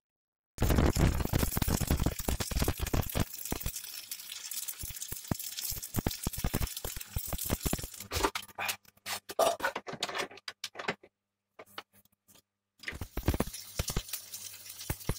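Electric arc welding on a steel roller clamped in a vise: a steady, dense crackle and spatter of the arc over a faint hum. It starts about half a second in, breaks off for a couple of seconds near the end, then starts again.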